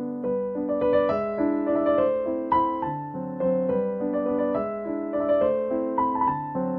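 Piano music: a melody of notes changing about every half second over held chords.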